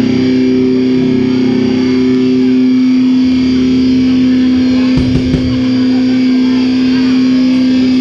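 Loud distorted electric guitar holding one sustained note, with a low bass rumble coming in about three seconds in and a sudden thud about five seconds in.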